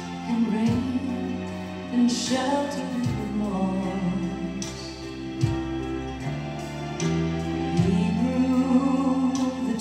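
A slow Christian song playing, with held accompaniment and a sung vocal line.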